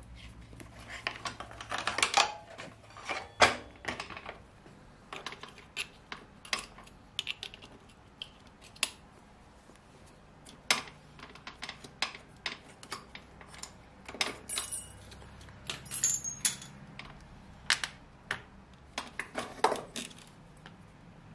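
Hand tools and a motorcycle's rear brake caliper parts clinking and knocking as they are handled, in irregular sharp metallic taps with a brief metallic ring about two thirds of the way through.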